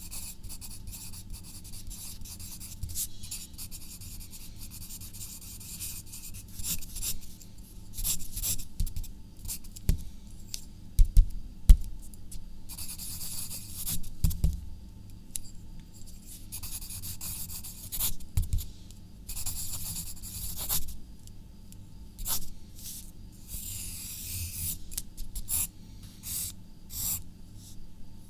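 Handwriting on paper: the writing tip scratches in irregular strokes, some drawn out over a second or two and others short quick ticks. A few dull low knocks come near the middle.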